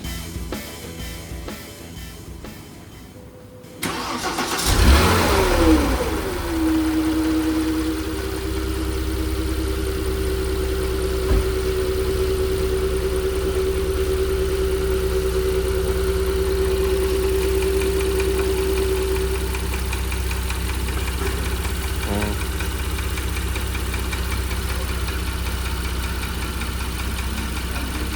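Porsche Cayenne 3.6-litre twin-turbo V6 starting about four seconds in: a brief crank, a quick rev flare that falls away, then a steady idle. This engine is in for a complaint of a knocking noise.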